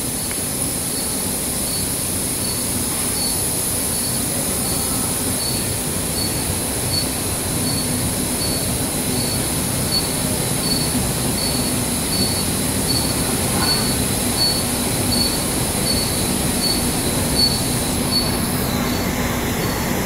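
Steady running noise of a silicone cable production line, with a high hiss over a low hum and a faint high tone pulsing about twice a second. The high hiss drops near the end.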